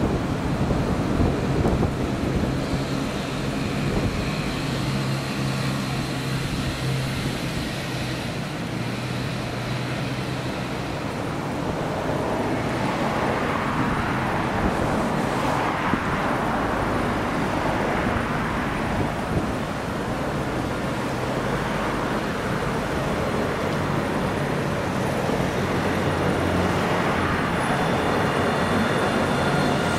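Alstom Citadis 402 tram approaching on street track, its running noise growing over the second half, with a thin high whine near the end as it draws close. Steady city traffic noise underneath.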